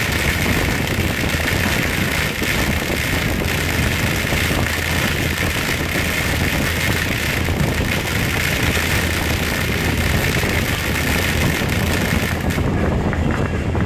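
Ground fountain firework burning, a steady loud rushing hiss of sparks spraying out. Near the end the highest part of the hiss drops away.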